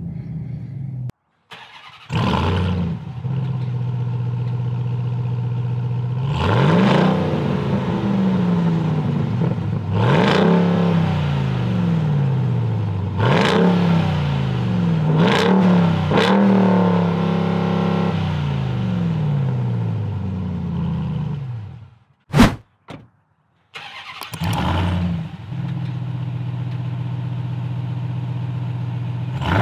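2021 Ram 1500 TRX's supercharged 6.2-litre Hemi V8 starting with a sudden burst of sound, then idling through its exhaust. It is blipped in a series of short free revs that rise and fall, then settles back to a steady idle. After a brief break with a single sharp click near the end, it starts again and idles.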